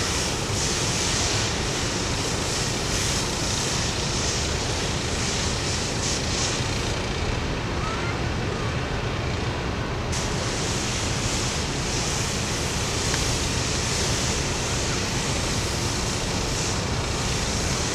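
Steady rush of sea surf and wind, with wind buffeting the microphone; the hiss of the water swells and eases every second or so.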